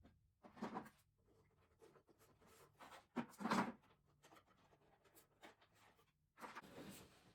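Quiet room with three short scraping, rustling handling sounds: about a second in, about halfway through, and near the end.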